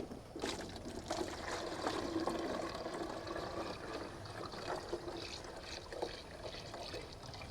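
Water pouring and trickling into the sawmill's plastic blade-cooling water container. It starts about half a second in and fades a little toward the end.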